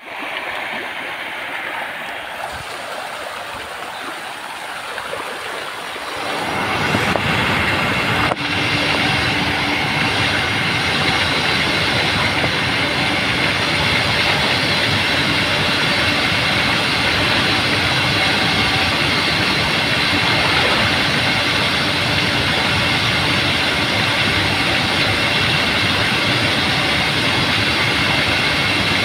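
Steady rushing and splashing of a jet of water pouring onto a pond surface where fish are thrashing, getting louder about six seconds in, with a faint steady hum underneath.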